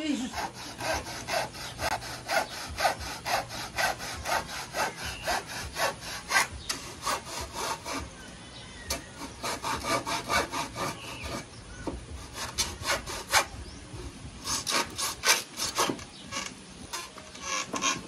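Handsaw cutting through a wooden board in quick, even back-and-forth strokes, about three a second, easing off briefly twice before carrying on.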